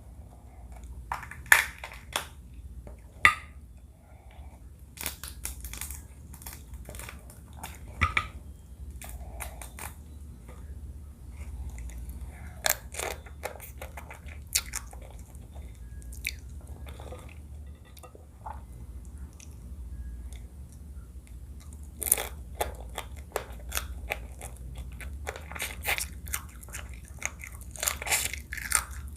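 Close-miked chewing and crunching while eating seafood crab papaya salad: sharp, irregular bites and crunches with wet chewing between them, coming thickest near the end, over a steady low hum.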